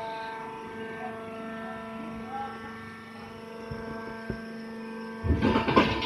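Wood-shaving baler running with a steady machine hum carrying several fixed whining tones, while shavings are pressed into the bag. Near the end comes a loud, brief burst of rushing noise.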